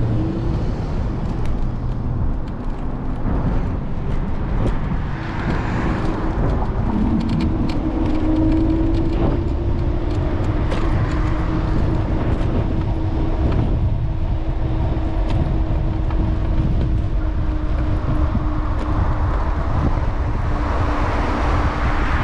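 City street traffic noise heard from a moving electric scooter, with a steady rumble underneath, scattered small clicks, and a thin steady whine that sets in about seven seconds in.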